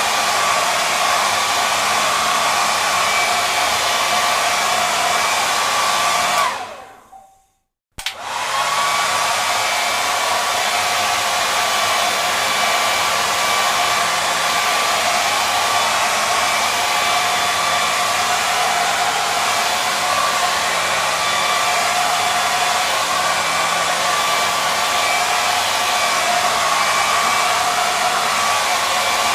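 Hair dryer blowing with a steady whine. About six and a half seconds in it cuts out, its whine falling as the motor spins down. A second or so later it starts again abruptly and runs steadily.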